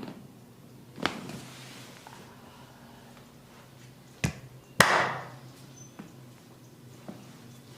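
Sharp, separate strikes of a percussive head and neck massage, about five in all, the loudest about five seconds in.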